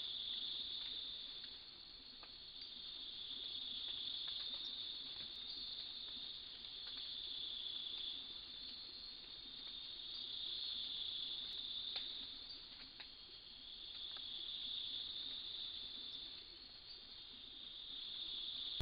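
Chorus of crickets or similar insects: a dense, high, continuous trilling that swells and eases every three to four seconds.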